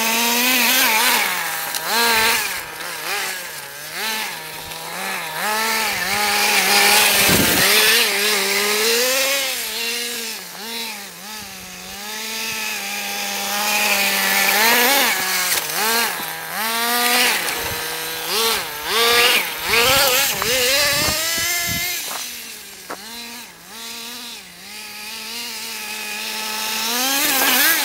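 Stock 2.5cc two-stroke nitro glow engine of an HPI Nitro MT 1 radio-controlled truck, revving up and down over and over as it is driven, and dropping back to a steady idle in between.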